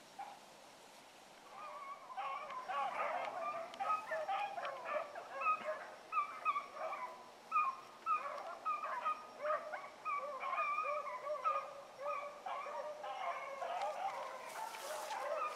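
A pack of rabbit hounds giving voice as they run a rabbit's trail: many short, overlapping bawls and chops, starting about a second and a half in and going on without a break.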